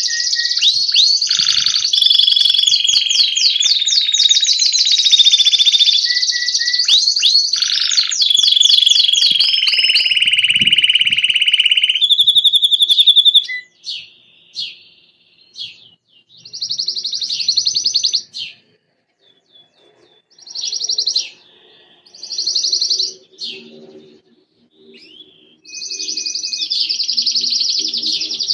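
Belgian canary singing: for about the first half a loud, unbroken song of rapid trills and long held whistled notes, then shorter phrases with pauses between them, then continuous song again near the end.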